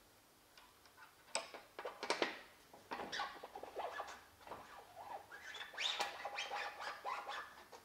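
Faint scraping, clicking and short squeaks of a metal pin being worked by hand through the boom and hydraulic ram of a LESU CAT 374FL scale model excavator.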